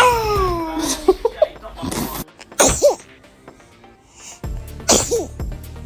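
A baby sneezing twice, two short sharp bursts about two seconds apart, over faint background music.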